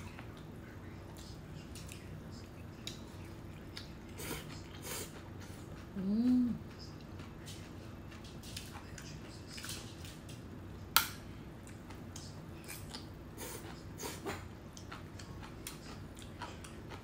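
Eating sounds: chewing, and metal chopsticks clicking against a glass dish, with one sharp click about eleven seconds in. About six seconds in comes one short whine that rises and falls.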